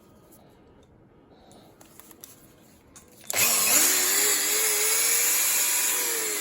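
Sparky electric drill: a few faint clicks, then about three seconds in the motor is switched on and spins up to speed with a rising whine, runs at full speed, and starts to wind down near the end.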